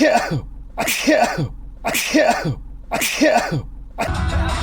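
A person sneezing four times in a row, evenly spaced about a second apart, in a sneezing fit. A steady low rumble starts near the end.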